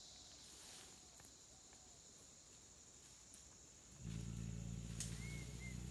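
Wild Sri Lankan elephant giving a deep, steady rumble that starts about four seconds in and lasts around two seconds.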